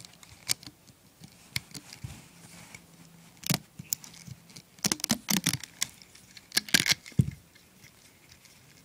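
Rubber bands and a plastic hook clicking and snapping against the pegs of a plastic rubber-band loom as the finished bracelet is pulled off, a string of irregular sharp clicks that bunch up about three and a half seconds in and again between five and seven seconds, with a low bump just after seven seconds.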